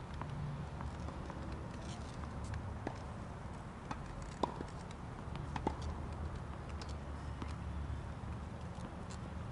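Tennis ball struck by rackets and bouncing on a hard court during a rally: a few sharp pops spaced a second or more apart, over a steady low background rumble.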